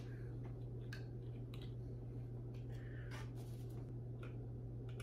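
Faint, scattered clicks and light scraping as tiny batteries are worked into a small plastic battery compartment with a little screwdriver, over a steady low hum.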